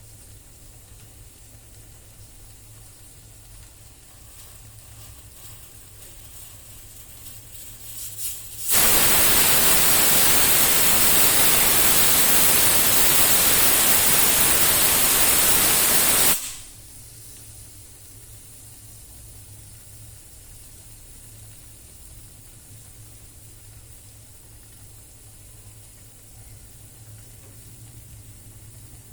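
Pressure cooker letting off steam through its whistle valve: a loud, even rush of hiss lasting about seven and a half seconds, with no whistle tone, which stops abruptly. A faint steady hiss runs before and after it.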